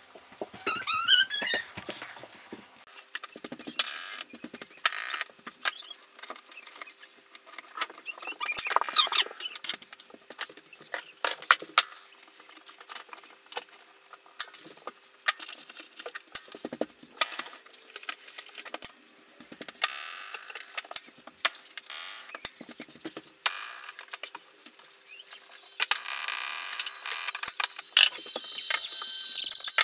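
Staple gun snapping staples through canvas into a wooden stretcher frame, one shot at a time at irregular intervals, with canvas handling and footsteps between shots.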